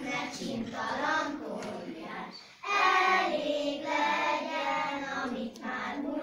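A group of children singing together, with long held notes.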